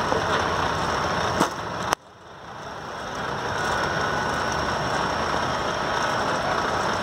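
Steady rushing outdoor background noise, broken about one and a half and two seconds in by two sharp knocks half a second apart. The second is loud, a cricket ball struck by the bat in the nets. After the loud knock the background briefly drops away and comes back over about a second.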